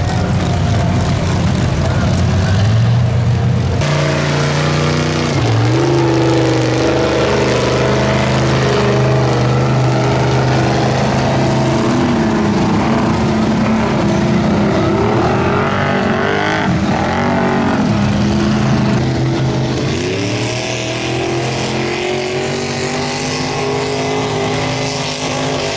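Engines of off-road vehicles in deep mud: a lifted mud truck and an ATV running and revving, the engine note rising and falling again and again with the throttle.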